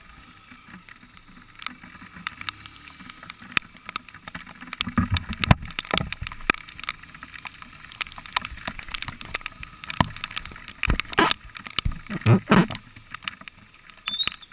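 Heavy rain striking a motorcycle-mounted camera's case in irregular sharp taps, over a low rumble of wind and the wash of tyres on a soaked road. The gusts swell about five seconds in and again near the end.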